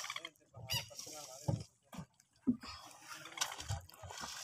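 Short wordless vocal sounds from men's voices, broken up, with a few sharp knocks in between.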